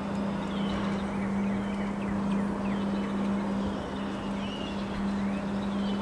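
Wind blowing steadily, with a constant low hum underneath and small birds chirping, several short calls a second.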